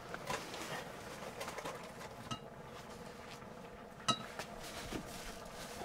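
Ladle clinking against a metal cooking pot during stirring: a few light, ringing clinks, the loudest about four seconds in.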